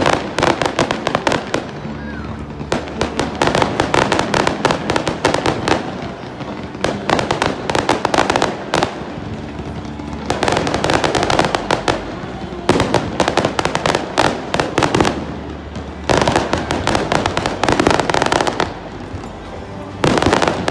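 Fireworks display: bursting shells with dense, rapid crackling that comes in waves of a few seconds each, with short lulls between.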